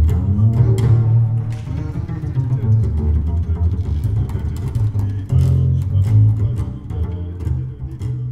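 Jazz double bass played pizzicato, its low notes moving under light drum and cymbal strokes. The music thins out and grows quieter near the end.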